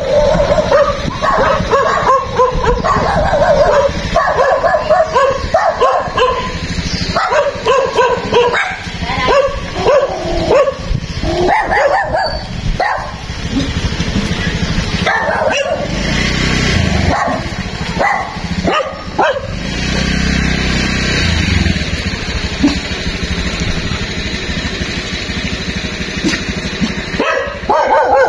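Dogs yipping and whining with short barks, many calls through the first half and again near the end.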